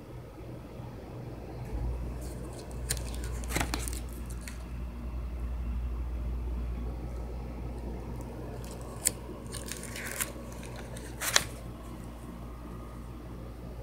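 Plastic sheet-protector pages of a ring binder being turned and handled, crinkling, with a few sharp clicks, the loudest near the end. A low rumble of the phone being handled sets in about two seconds in.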